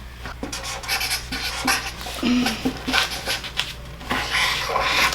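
Writing on paper: irregular, scratchy strokes as words are written out.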